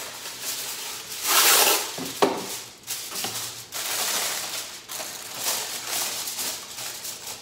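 Aluminium foil rustling and crinkling as it is pulled off the roll, torn and pressed down around the rim of a metal roasting pan. There is a loud burst of crackling about a second and a half in, with a sharp snap just after, then softer crinkling as the foil is crimped.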